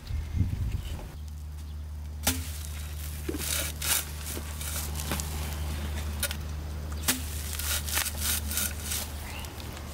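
A steady low hum starts about a second in, with scattered sharp knocks and crackling over it.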